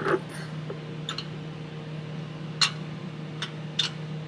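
About five sharp metallic ticks, spaced irregularly, from the bed-plate adjustment of a Weinig P700 moulder's left head as the adjusting knob is turned to move the plate in and out. A steady low hum lies under them.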